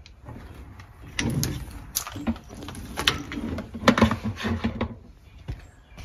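Hoses being handled and set back into a plastic bucket: a series of sharp knocks and rattles, with rustling handling noise between them.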